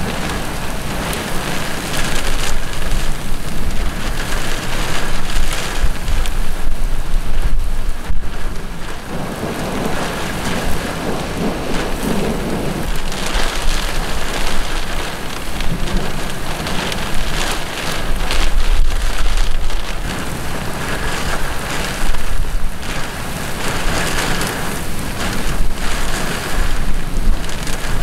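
Heavy rain pouring down onto a wet road and grass in a thunderstorm, a dense steady hiss, with low rumbling surges that swell twice, a few seconds in and again past the middle.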